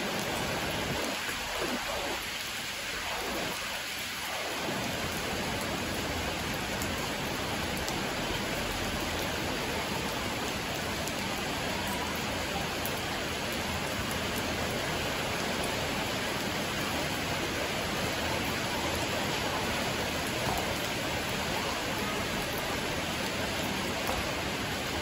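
Steady rain falling on a wet concrete yard, an even hiss of drops splashing on the flooded pavement.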